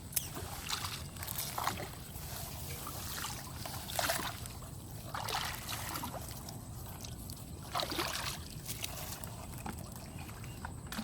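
Water sloshing and splashing, with irregular splashes every second or few over a steady low rush of background water noise.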